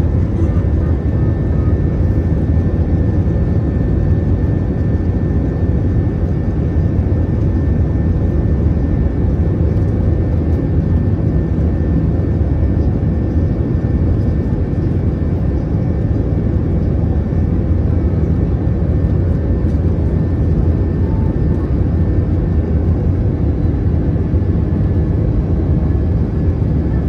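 Cabin noise of an Airbus A321 in climb: a steady low roar of airflow and its IAE V2533-A5 turbofans at climb thrust, with a faint steady whine above it.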